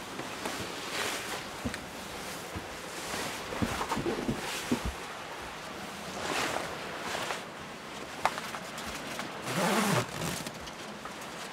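Rustling of a padded jacket and bedding with a few knocks as a person shifts about in a cramped boat cabin, over a steady hiss. The rustling comes in several swishes, the loudest near the end, with a short run of knocks in the middle.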